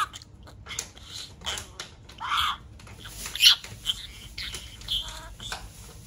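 Budgerigar chattering: a run of short chirps, clicks and warbles, including a longer warbled note a little after two seconds in and a sharp, loudest chirp about three and a half seconds in.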